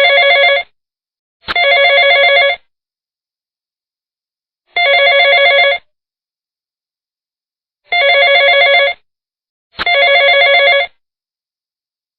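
Telephone ringing: trilling rings about a second long, with silence between them and no even rhythm. One ring trails off just as the stretch begins, and four more follow.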